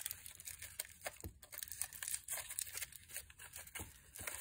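Aluminium foil crinkling and crackling irregularly as hands press and mould it around a cement cast.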